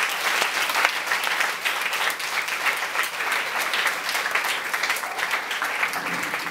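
An audience of schoolchildren applauding, many hands clapping at once.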